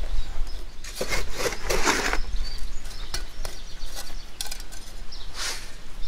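Shovel scraping through soil and small stones, twice: a longer gritty scrape about a second in and a shorter one near the end, with a few sharp clicks of stones knocking in between.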